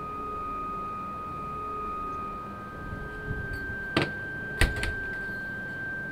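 A front door pulled shut: two sharp knocks about half a second apart, the second the louder, over a steady high sustained tone.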